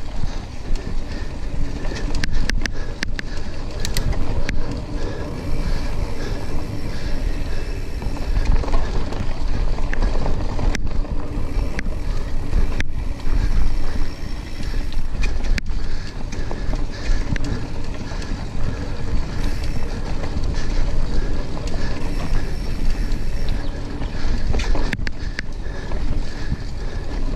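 Mountain bike ridden fast down a dirt singletrack: wind buffeting the handlebar-level camera microphone over the tyres rolling on dirt, with a few sharp knocks and rattles from the bike as it goes over bumps.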